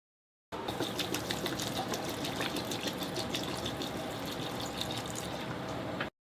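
Water being poured from a bottle, a steady splashing pour full of small drips and bubble ticks. It starts abruptly about half a second in and cuts off sharply after about five and a half seconds.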